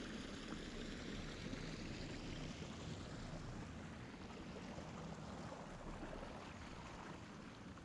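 Faint, steady wash of water against the hull of a 17-foot Boston Whaler under way on a quiet electric outboard, easing off slightly toward the end.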